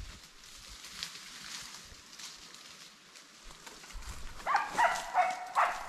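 Faint rustling of brush and footsteps, then, about four and a half seconds in, an animal's short pitched calls, four or five in quick succession over about a second.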